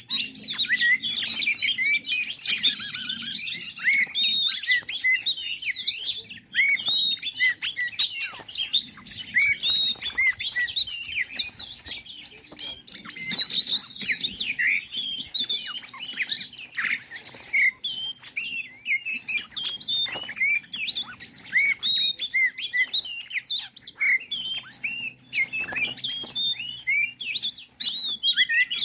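Birds chirping and twittering densely and without pause, a rapid stream of short high notes that rise and fall in pitch.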